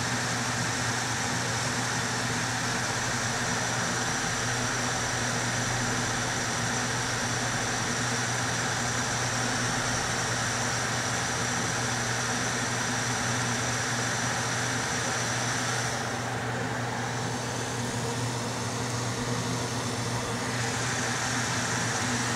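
Steady running of a small electric air blower: a constant low hum under an even hiss of moving air. The hiss thins for a few seconds about two-thirds of the way through, then returns.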